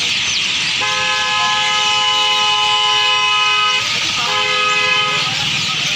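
A multi-tone horn sounds two steady blasts, a long one of about three seconds and then a shorter one of about a second, over the continuous dense chirping of a large roosting flock of birds.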